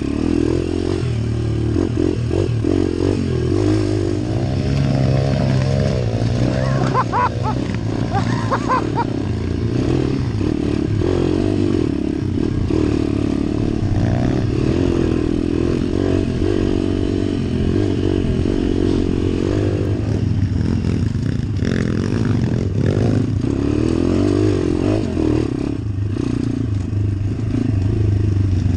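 Single-cylinder four-stroke engine of a YX 140 pit bike being ridden off-road, its pitch rising and falling as the throttle opens and closes, with knocks and rattles from the bike over rough dirt trail.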